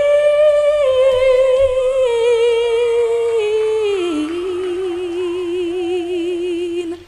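A woman's solo singing voice holds a long high note with vibrato. The pitch steps gradually downward, settles on a lower note about four seconds in, and holds there until it cuts off abruptly near the end.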